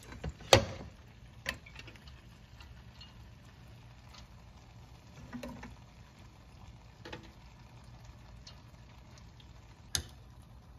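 A spoon knocking and scraping against a cooking pot while rice is spread in a layer: a sharp knock about half a second in, then a few fainter taps spread over the next several seconds, over a steady low hum.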